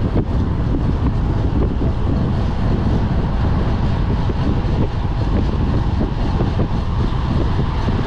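Steady wind buffeting the microphone of a handlebar-mounted camera on a road bike riding at speed.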